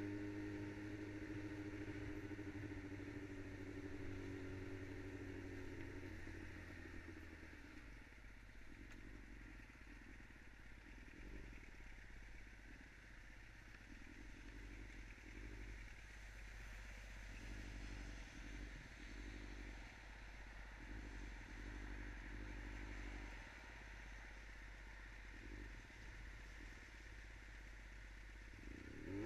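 Yamaha R6 inline-four engine running steadily as the bike rolls, then dropping to a low, uneven idle after about seven seconds while stopped. Near the end the revs rise again as it pulls away.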